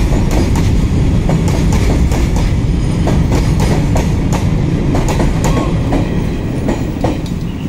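Freight train of covered goods wagons rolling past at close range: a loud, steady rumble with the wheels clacking irregularly over the rail joints. The guard's brake van at the tail goes by near the end, and the sound begins to ease.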